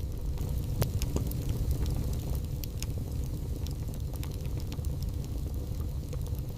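Wood fire burning in a fireplace: a steady low rumble of the flames with scattered sharp crackles and pops, one louder pop about a second in.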